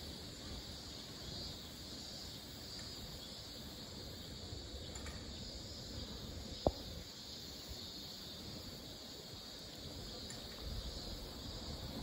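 Steady high-pitched chirring of insects such as crickets over a low background hum, with one sharp tap about six and a half seconds in.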